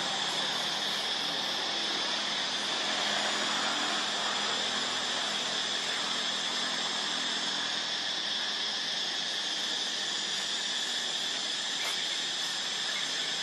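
Steady insect chorus in the forest canopy: a continuous, even high-pitched buzz that holds without a break.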